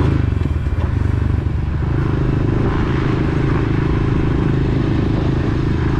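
Honda CRF125F dirt bike's small single-cylinder four-stroke engine running steadily while the bike rides along, its note changing about two seconds in.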